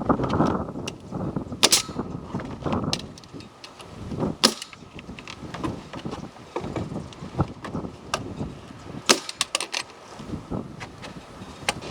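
Irregular sharp knocks and clacks, a few seconds apart, over a low background noise that is busier in the first few seconds.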